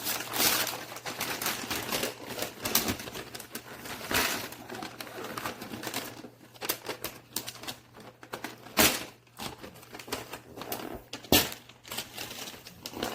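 Gift packaging being handled and opened: rustling for the first few seconds, then scattered clicks and knocks, with two sharper knocks about nine and eleven seconds in.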